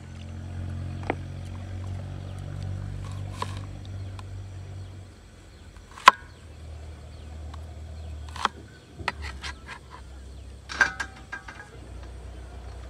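Cleaver knocking sharply a few times at irregular intervals as onion is chopped on a plastic cutting board, then a quick run of metallic clinks as the knife scrapes the pieces onto a steel plate near the end, over a steady low rumble.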